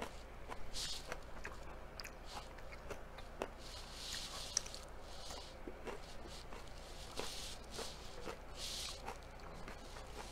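Close-up of a person chewing food with lips closed: irregular wet mouth clicks and smacks, with short breathy puffs every second or so.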